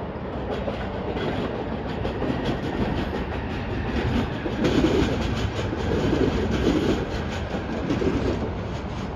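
AirTrain JFK people-mover train, Bombardier ART Mark II cars, running by on its elevated steel-rail guideway, its wheels making a rumble with a quick run of clicks. It grows louder as the train passes, about halfway through, and eases off near the end.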